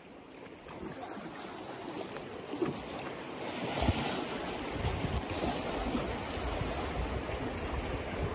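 Flowing river water rushing and splashing as a swimmer strokes through it, growing louder about halfway through, with wind buffeting the microphone in the second half.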